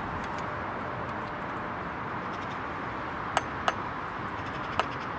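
Three sharp metallic clinks, two close together about three and a half seconds in and one more near the end, as a hand tool knocks against fittings on a metal water standpipe. They sound over a steady outdoor hiss.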